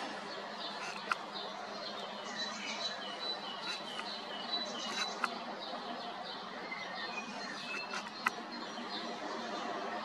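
Several songbirds singing together, many short overlapping chirps and phrases. Three sharp clicks fall at about one, five and eight seconds in.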